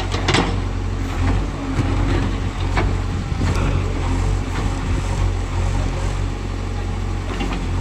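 Diesel engine of heavy earth-moving equipment running steadily at a low hum, with a few sharp clanks near the start and around three seconds in.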